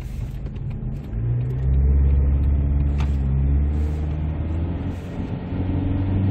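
Car engine accelerating hard, heard from inside the cabin, with an upshift about five seconds in. A single short click sounds about three seconds in.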